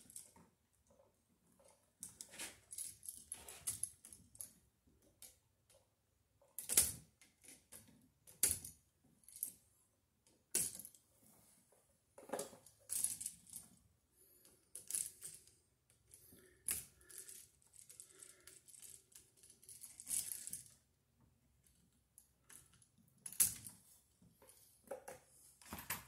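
Light, irregular metallic clicks and scrapes of a screwdriver working the terminal screws of wiring devices and their metal mounting straps being handled, with a few sharper clinks.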